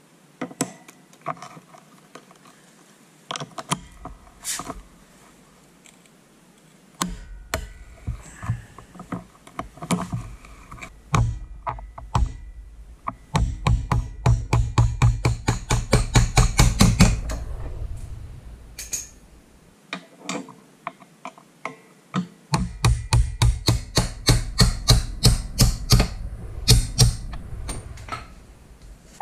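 Hand tools working the motorcycle's rear engine mount bolt: a few scattered metal clicks and knocks, then two long runs of quick, even ratchet clicking, about five clicks a second, as the bolt is loosened and backed out.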